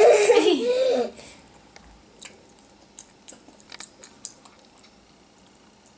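A short burst of voice at the very start, then a girl chewing a bite of caramel (manjar) torte: faint, scattered mouth clicks.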